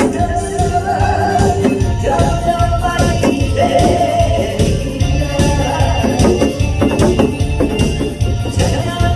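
Upbeat music with a steady, fast beat and tambourine jingles, with a held melody line over it.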